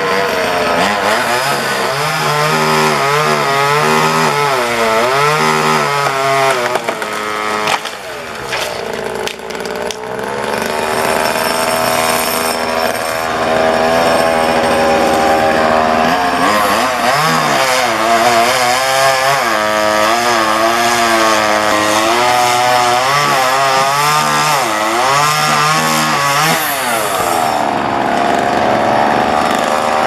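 Small gas chainsaw running up in a tree while cutting a limb, its engine revving up and down over and over, easing off briefly about eight seconds in. Its chain is dull.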